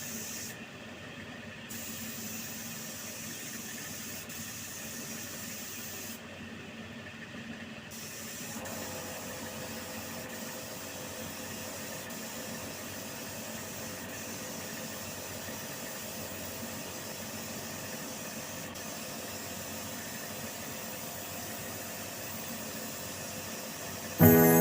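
Steady hissing noise that briefly loses its high edge twice in the first eight seconds, with a faint steady hum added about nine seconds in.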